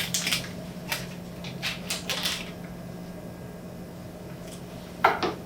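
Kitchen handling noises: a series of short clicks and knocks over a steady low hum, with a louder sharp sound near the end.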